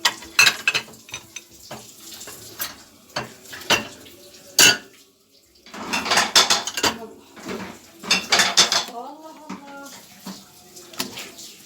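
Dishes and cutlery clattering and clinking as they are handled, in irregular bursts of sharp knocks with a short pause about five seconds in.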